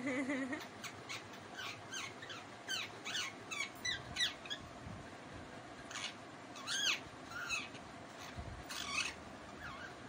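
Young Indian ringneck parakeet chattering in short squeaky chirps, a scatter of quick rising and falling notes, thickest about three to four seconds in and again near seven and nine seconds: a young bird practising sounds before it can talk.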